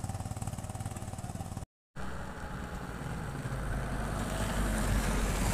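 A vehicle engine running, with a fast, even low pulse. The sound drops out completely for a moment just before two seconds in, then comes back as a deeper rumble that grows louder toward the end.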